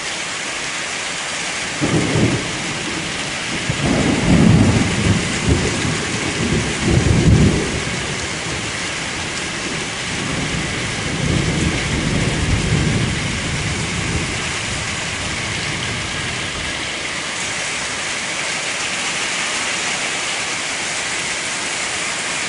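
Thunder rumbling over steady rain: a short rumble about two seconds in, then a louder rolling rumble lasting about four seconds, and a fainter one a few seconds later.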